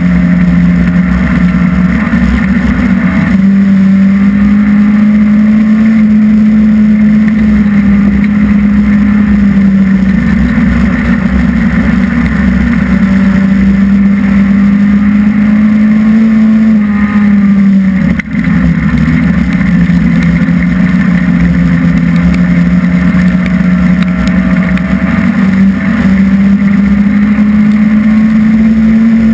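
Hobby stock dirt-track race car's engine at racing speed, heard loud from inside the cockpit. Its pitch holds high on the straights and drops as the driver lifts for the turns, with a sharp momentary dip about 18 seconds in, then climbs again near the end.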